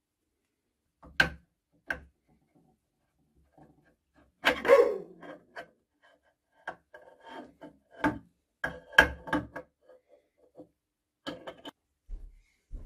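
Steel parts of a small lathe's slide handled and fitted by hand: sharp metal clicks and knocks, with a longer scrape about four and a half seconds in and a run of clicks after it.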